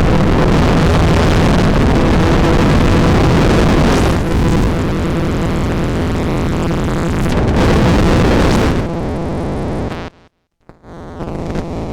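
Dense, noisy roar from a Sound of Shadows PT2399 digital delay module under Facehugger control. It thins about four seconds in and swells again, then cuts out almost completely about ten seconds in before coming back quieter.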